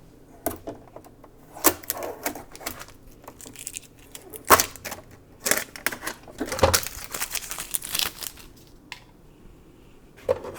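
Hard plastic parts of a sewing machine being handled and pulled apart, with plastic packaging crinkling: irregular clicks and knocks, and a stretch of crackling in the middle.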